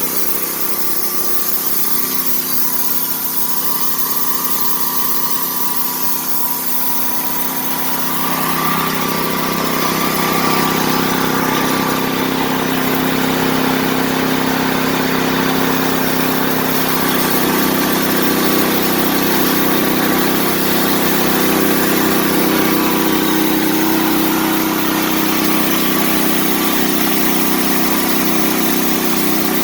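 Predator 420 single-cylinder gasoline engine on a homemade sawmill running steadily just after starting, with the throttle wide open. Its sound gets a little louder about 8 seconds in and shifts slightly higher in pitch around 17 seconds in.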